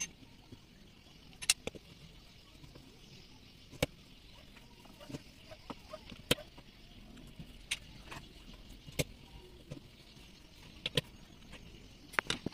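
Sharp metallic clicks and taps every second or two as parts and hand tools are handled on the stator (magneto coil) plate of a partly assembled Yamaha 40 hp outboard engine, over a faint steady hiss.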